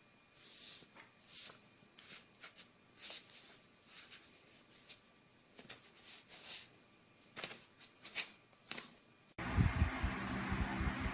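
Sheets of printer paper softly rustling and crinkling in short, irregular bits as a cat pats and paws at them. Near the end the sound cuts suddenly to a louder low rumble with heavy thumps.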